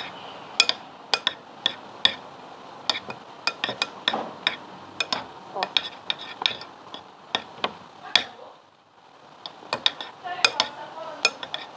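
A spoon stirring thick shaving-foam slime in a bowl, with irregular sharp clicks and taps of the spoon against the bowl's side and a soft squelching underneath. The stirring stops briefly about two-thirds of the way in, then resumes.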